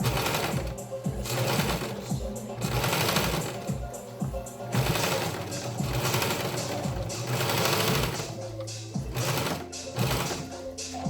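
Sewing machine stitching in several short runs, over background music with a steady beat.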